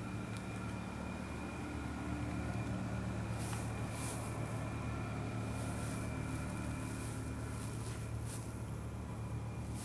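A steady low hum from a running motor, with a few faint, brief hisses over it.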